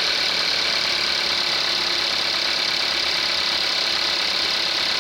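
2019 Kia Soul's direct-injection inline four-cylinder engine idling steadily and loud during its cold-start warm-up period, before it heats up and quiets down.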